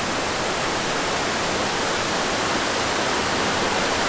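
Steady rushing of falling water from a waterfall.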